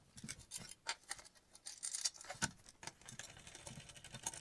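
Faint, irregular small clicks and taps of a hand screwdriver working a screw as an aluminium buttstock is fastened to a rifle chassis, with the sharpest click about two and a half seconds in.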